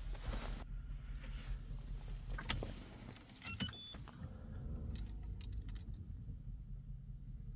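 Car keys clicking and jingling, a few short electronic beeps, and a brief whir of a small electric motor in the car, over a low steady hum: the car being readied before a cold start.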